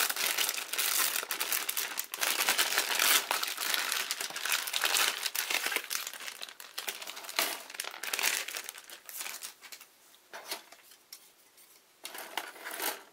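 Clear plastic kit bag crinkling as plastic model-kit sprues are slid out of it and handled. The crinkling is dense for most of the time, then dies down after about ten seconds, with a few short crinkles near the end.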